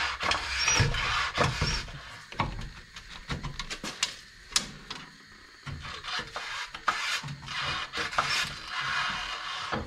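Metal suspension parts being worked by hand: scattered knocks, clicks and rubbing scrapes as the track bar and brake line are handled around the front axle, loudest in the first couple of seconds, with a few short high squeaks near the start.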